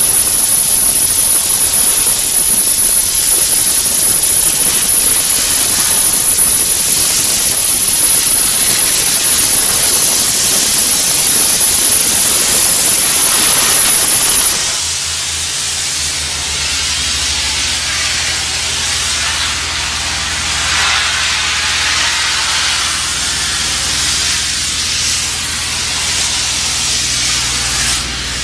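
Sandblaster at work: a loud, steady rush of compressed air and abrasive with a high steady whine. About halfway through the level drops, the whine rises briefly and stops, and a steady low hum runs under the quieter hiss.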